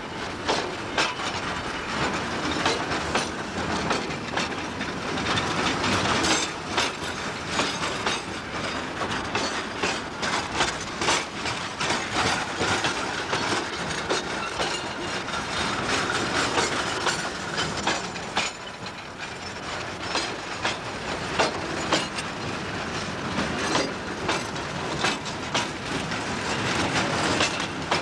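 Loaded sugar-cane wagons rolling slowly past close by, their steel wheels clattering over the rail joints with a steady run of irregular clicks and knocks.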